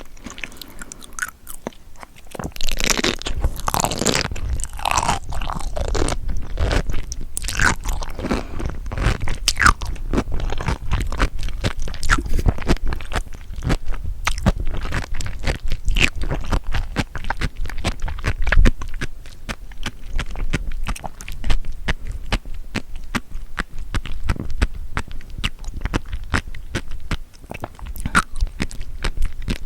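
Close-miked chewing of seafood, crunchy with many small clicks and pops, getting louder about two and a half seconds in and carrying on steadily.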